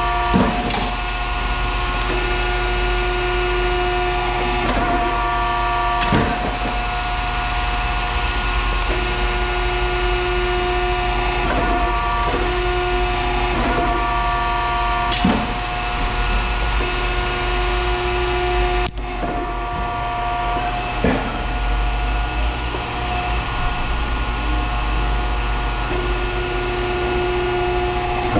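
A machine running with a steady whine, with sharp metal clanks every second or two. The sound changes abruptly about two-thirds of the way through.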